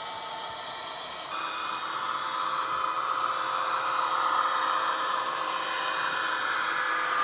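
Class 66 diesel engine sound from a Soundtraxx Econami sound decoder played through a model locomotive's small speaker, running steadily with a hissing, whirring tone. It steps up about a second in and grows louder as the locomotive approaches.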